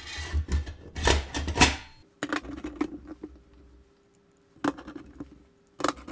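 A sheet-metal ATX power supply case handled on a rubber bench mat: about two seconds of rubbing and scraping, then scattered clicks and knocks.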